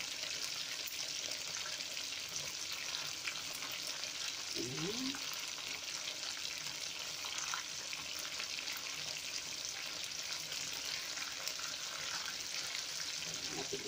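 Chicken wings shallow-frying in hot oil in a pan: a steady sizzle full of fine crackles and pops.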